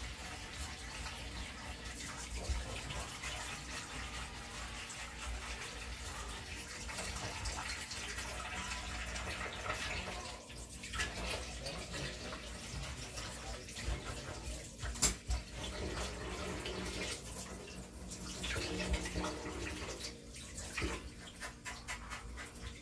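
Tap water running into a stainless kitchen sink while gloved hands wash something under the stream. The flow is broken briefly several times in the second half, with one sharp clack about 15 seconds in.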